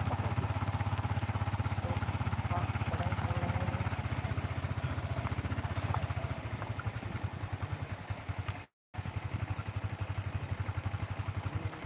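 Motorcycle engine running steadily at low revs as the bike rides along, with a fast even pulse of firing strokes. The sound cuts out completely for a fraction of a second about three-quarters of the way through, then resumes unchanged.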